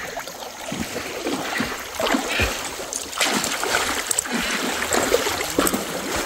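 Irregular water splashing and sloshing as animals wade through a flooded stream, a little louder from about three seconds in.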